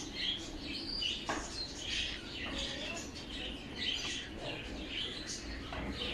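Birds chirping and twittering in quick, repeated calls.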